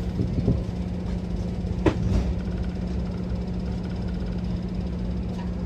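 A train's engine running with a steady low hum, with a brief sharp sound about two seconds in.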